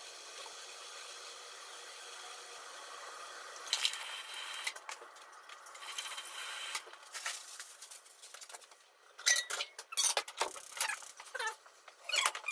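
Quiet handling noise of raw pork belly slices being shaped into rings on a plastic cutting board, then several sharp metallic clinks and knocks in the last few seconds as a frying pan is set on the gas stove's grates.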